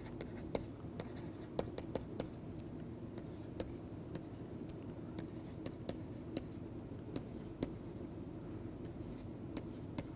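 Stylus writing on a tablet: irregular sharp taps and light scratching as handwritten symbols go down, over a low steady hum.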